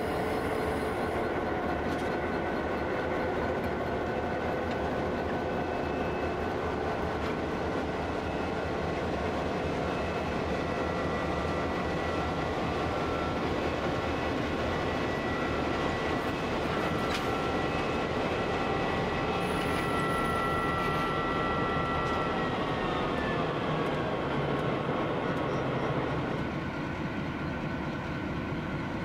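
Diesel freight locomotives, an RL class and a 49 class leading, moving slowly with their engines running. A steady high whine sinks in pitch and fades about three-quarters of the way through, and the sound drops a little near the end.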